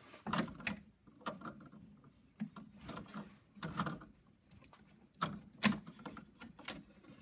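A finished plastic 3D print being worked loose from the glass build plate of a Da Vinci Jr. 3D printer: irregular clicks, taps and scrapes, the sharpest knocks a little past the middle.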